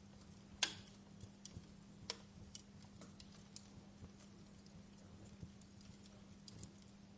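Wood fire in a fireplace crackling: scattered sharp pops and ticks, the loudest a bit over half a second in and another around two seconds, over a faint steady low hum.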